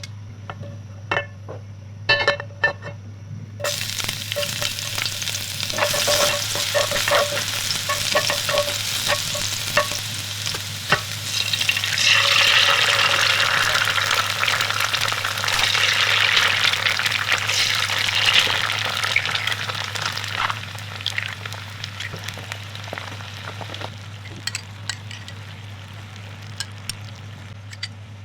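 Eggs frying in hot oil in a pan. A few sharp clicks come first, then a sizzle starts a few seconds in, grows louder through the middle and dies down toward the end, with scattered light clicks.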